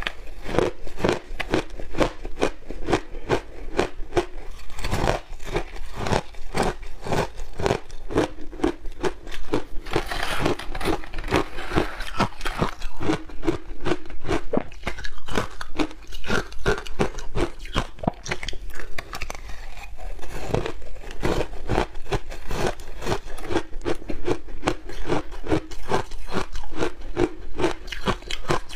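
A person biting and chewing mouthfuls of frozen shaved ice close to a clip-on microphone: a dense, continuous run of sharp crunches, several a second.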